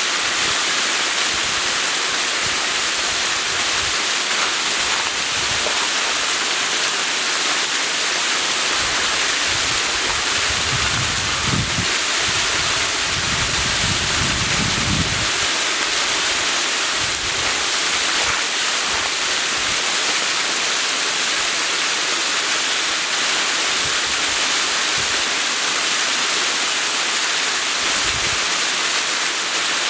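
Waterfall rushing steadily, a constant hiss of falling water. Low wind rumbles on the microphone come and go, the strongest a little before the middle.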